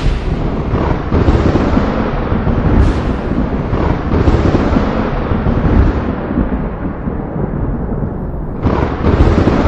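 Thunder: sharp cracks followed by long rolling rumbles. One crack comes right at the start, a smaller one about three seconds in, and a loud new clap near the end.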